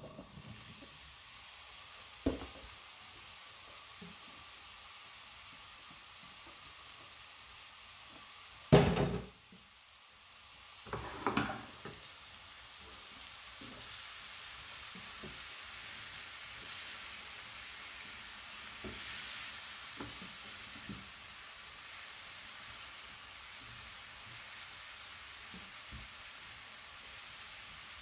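Chopped mushrooms sizzling in melted butter in a frying pan, stirred with a wooden spatula. A loud knock comes about nine seconds in and a short clatter around eleven seconds, after which the sizzling runs steadily a little louder.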